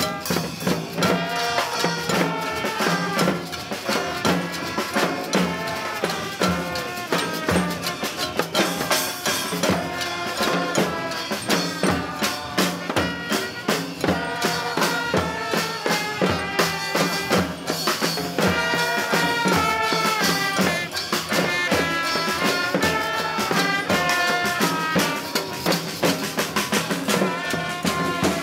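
A live street brass band plays a tune: tuba, trumpets, trombone and saxophones over a steady bass drum beat.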